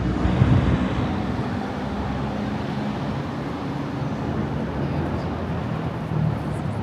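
City street traffic: a steady low rumble of vehicle engines and tyres, a little louder in the first second.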